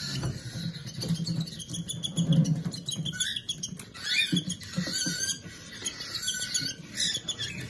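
Baby cockatiel chicks making begging sounds while being hand fed: a busy run of short clicks and brief high chirps.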